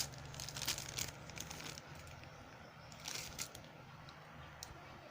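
Plastic packaging crinkling as it is handled and opened, in two short bursts of crackling, the second about three seconds in, over a steady low hum.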